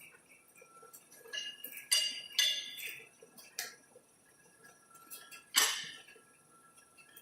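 Several sharp metallic clinks and knocks with brief ringing, irregularly spaced, the loudest near the end, over a faint steady high hum.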